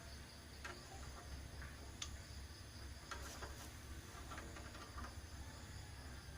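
Low hum of a running refrigerator compressor, with scattered faint clicks and ticks.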